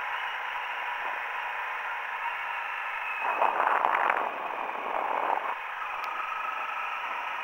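Honda CRF 250L single-cylinder engine running under way on a dirt track, heard through a small camera microphone as a muffled, hissy drone with a faint steady hum. For about two seconds in the middle a louder rough rushing noise rises over it, then settles back.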